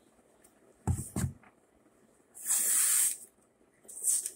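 Wooden model boxcar parts being handled: two dull knocks about a second in, then a short hissing scrape a little past halfway, and a fainter one near the end.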